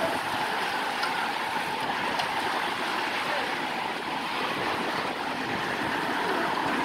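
Steady rushing hiss of a group of racing bicycles passing close by on asphalt: tyres and spinning wheels.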